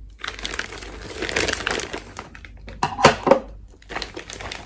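Stiff plastic blister packaging crinkling and crackling as it is handled and worked open, with a few loud sharp cracks about three seconds in.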